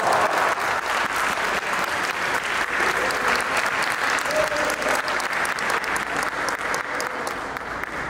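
Spectators clapping steadily after the referees award a point, the applause slowly fading near the end.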